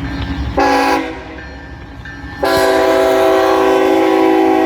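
Air horn of a CSX freight locomotive sounding a chord: a short blast about half a second in, then a long steady blast starting about two seconds later, the closing short-long of the grade-crossing signal. Low train rumble underneath.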